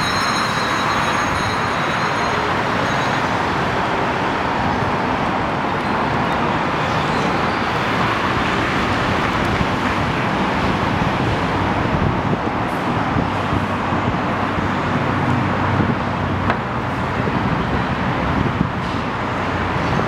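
Steady drone of city road traffic, with a set of high steady tones fading out about three seconds in.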